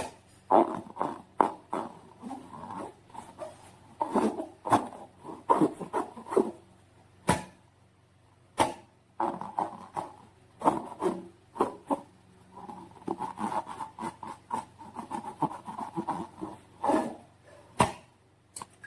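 Hands squishing and working slime, an irregular run of short, wet squishy sounds with a few sharp clicks.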